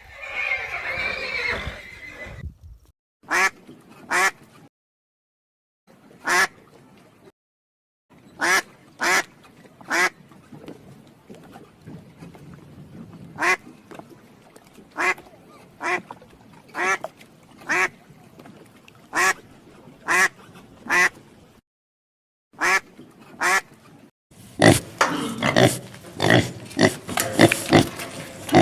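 Duck quacking over and over in short single quacks, about one a second, broken by brief silent gaps. A horse's whinny fades out at the start, and near the end many calls overlap in a dense burst.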